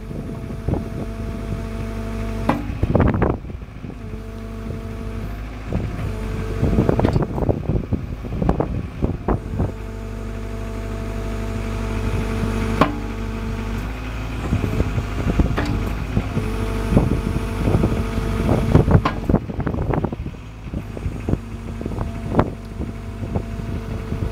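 Mini excavator's diesel engine running, with a steady hydraulic tone that comes in and drops out several times as the 4-in-1 bucket's clamshell jaw is opened and closed. Scattered knocks and clatters run through it.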